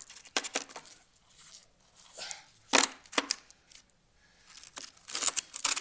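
Steel impact sockets, extensions and adapters being handled, knocking against each other and the carrying case in a series of sharp clacks, the loudest two a little under halfway through and a quick run of them near the end.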